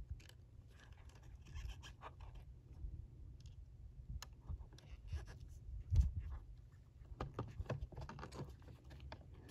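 Faint scattered clicks and scratches of gloved hands fitting a small metal wire retainer onto a flush cable in a toilet's plastic foot-pedal mechanism, with a sharper knock about six seconds in. A steady low rumble runs underneath.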